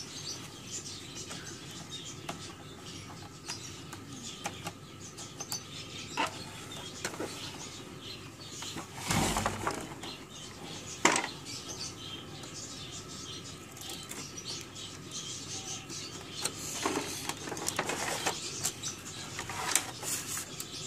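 Scattered clicks and knocks of an Epson T60 inkjet printer's plastic and metal chassis and carriage parts being handled during reassembly, with a louder knock about nine seconds in and a sharp click just after.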